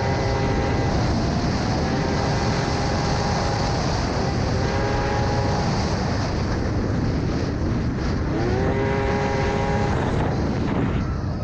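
Polaris three-cylinder two-stroke snowmobile engine running hard at high speed over a steady rushing noise. Its pitch dips and climbs back twice as the throttle is eased and opened again. It fades near the end as the sled slows.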